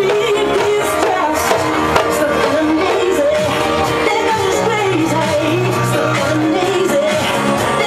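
Loud club music with a wavering sung melody over steady bass notes, and a djembe hand-drummed along with it.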